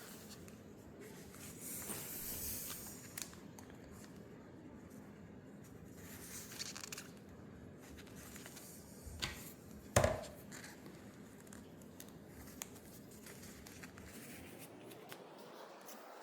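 Hands stretching and pressing a replacement ear pad onto a Skullcandy Crusher headphone ear cup: soft rustling and scraping with scattered small plastic clicks, and one sharper click about ten seconds in.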